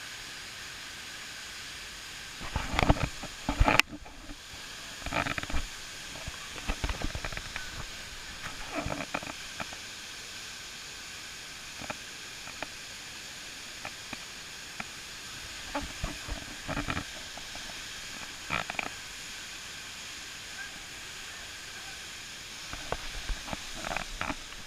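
Steady rush of a waterfall heard close up, with short louder bursts of rumbling noise every few seconds.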